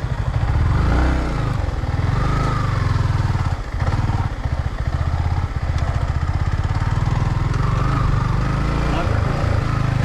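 Motorcycle engine running steadily under load, a fast low throb, dipping briefly twice around the fourth second.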